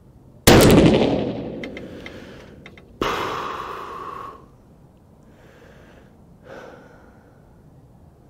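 A single 6.5 PRC rifle shot from a Howa 1500 fitted with a TBAC muzzle brake: a sharp, loud report with a long reverberating tail under the range's roof, followed by a few small clicks. About two and a half seconds later comes a second, quieter sharp report that rings for about a second.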